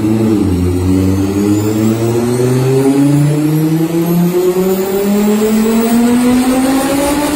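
V10 engine of a V10-swapped VW Golf Mk4 under load on a chassis dyno, engine speed climbing slowly and steadily through a long pull, with a brief dip in pitch near the start.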